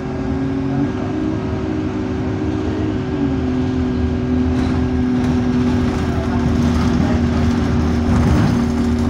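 Euro 5 Alexander Dennis Enviro200 bus with an Allison automatic gearbox, its engine and transmission running steadily under way, with a steady whine whose pitch steps down about three seconds in. The gearbox is in limp mode with no kickdown.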